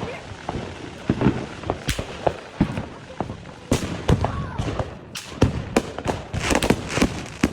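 Fireworks going off: a string of irregular sharp bangs and crackles, coming thicker and louder in the second half.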